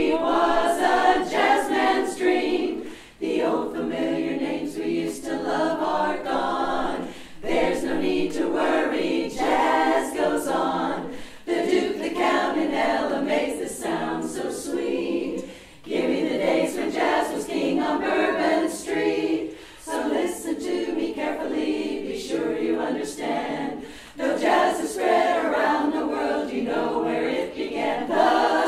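Women's barbershop chorus singing a cappella in four-part harmony, in phrases of about four seconds with short breaks between them.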